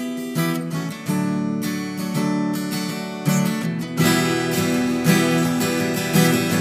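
Acoustic guitar strumming chords in an instrumental passage of a song, the strumming growing busier and brighter from about four seconds in.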